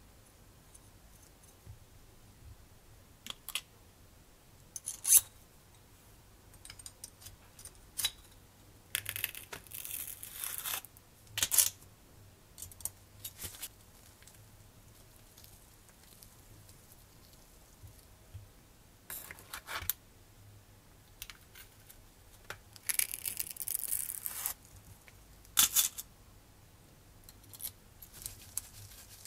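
Close-up handling sounds of small metal model-engine parts being fitted and screwed together by hand: scattered sharp clicks and taps, with two longer scratchy rustling stretches, about nine seconds in and again about twenty-three seconds in.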